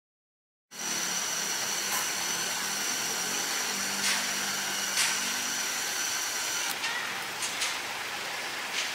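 Steady hum and hiss of a fuel station forecourt at the pump, with a few light clicks scattered through it.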